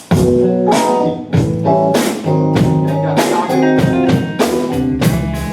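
Live band playing: a drum kit beat with electric or acoustic guitar, starting right at the beginning and running steadily with sharp drum hits between the guitar notes.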